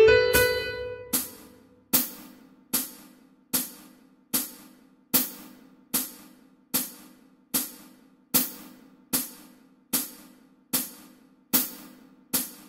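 The last piano notes of the melody play and fade in the first second. After that a percussion click keeps time alone, one sharp stroke about every 0.8 seconds.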